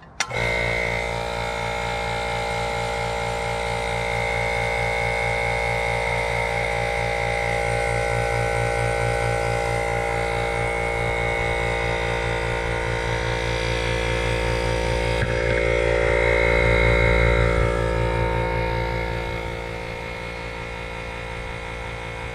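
Senco 1-gallon oil-free quiet air compressor switching on with a click and running steadily: an even motor hum with a fast, regular pulse. It runs a little quieter for the last few seconds.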